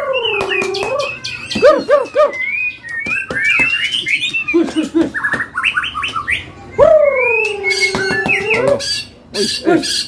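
Several caged songbirds, mostly white-rumped shamas, singing loudly at once in full song: overlapping whistled phrases, rising and falling glides and sharp chips. A long low whistle that drops in pitch and then holds comes twice, at the start and about seven seconds in.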